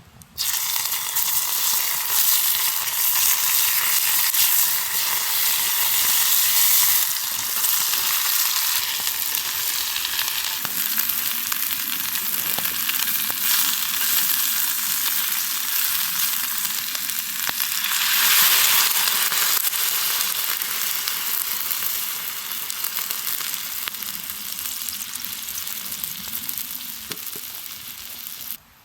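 Steady, loud sizzling of food frying in a hot pan. It starts and stops abruptly.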